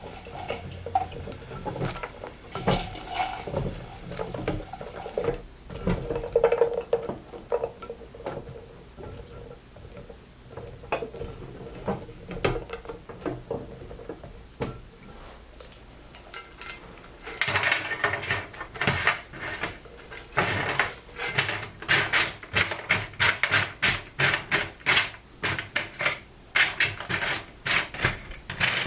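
Popcorn and caramel being stirred and tossed with a silicone spatula in a heat-resistant glass bowl, with irregular knocks against the glass. About two-thirds of the way in it turns to a dense, rapid clicking and rattling of popcorn.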